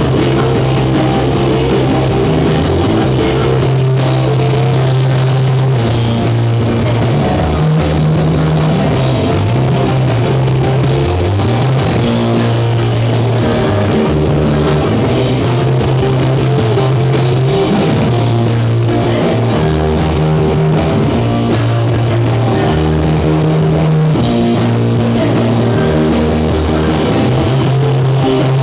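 Live rock band playing loudly: guitars and drum kit over heavy bass notes that shift every second or two.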